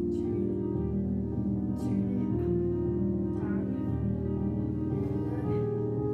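Piano music of the kind that accompanies a ballet barre exercise, with held notes that change about once a second.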